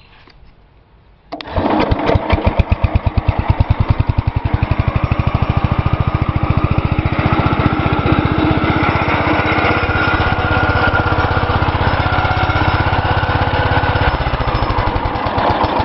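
Cub Cadet 126 garden tractor's single-cylinder engine catching suddenly about a second in, then running steadily with an even, fast beat; the beat changes slightly near the end.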